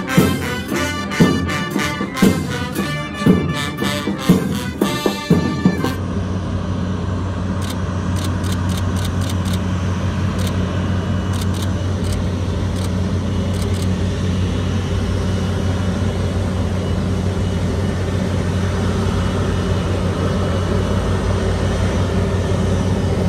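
A brass band plays for about five seconds, then stops abruptly. A steady low engine drone follows: the Airbus A330's jet engines as it taxis at low power through the fire tenders' water-cannon salute.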